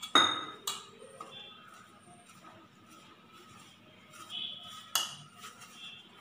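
Hands rubbing damp ragi flour in a metal bowl, mixing it to a crumbly, lump-free texture for puttu. A soft rustle is broken by a few sharp, briefly ringing clinks against the bowl. The loudest come just after the start and about five seconds in.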